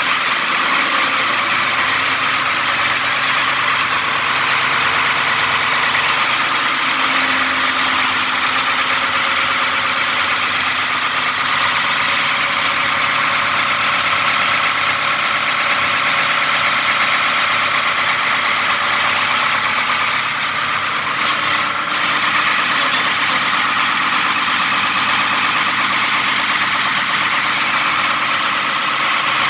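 Freshly overhauled diesel engine of a fire pump running steadily and loudly during a test run.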